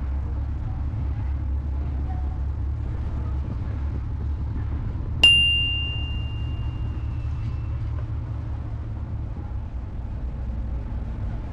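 Steady low rumble of a ferry's engine, with a single sharp metallic ding about five seconds in that rings on as one clear high tone and fades over about two seconds.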